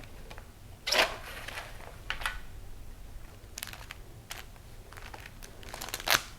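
Items from a boxed merchandise package being handled: a few short rustles and clicks of packaging, the loudest about a second in and again near the end.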